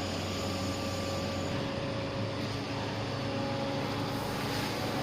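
Steady mechanical hum with a few faint steady tones under it, the low tone shifting slightly about one and a half seconds in.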